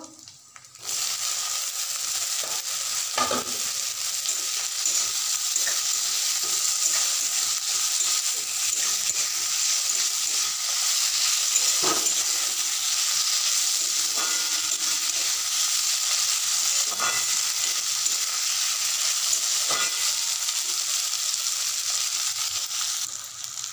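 Chopped tomatoes sizzling in hot oil in a metal kadai, the hiss starting about a second in as they go into the pan and easing off just before the end. A spatula stirs them, with a few sharp scrapes and knocks against the pan.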